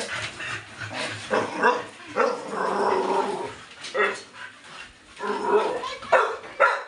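Six-month-old American bully barking repeatedly in short barks, with a longer drawn-out bark about two seconds in.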